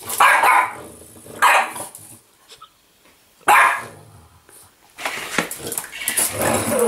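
French bulldog barking: three sharp single barks a second or two apart, then a busier stretch of barking and growling from about five seconds in.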